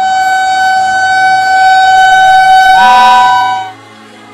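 Locomotive horn of an arriving train, sounding one long, loud blast. A second, higher note joins it near the end before the horn cuts off suddenly.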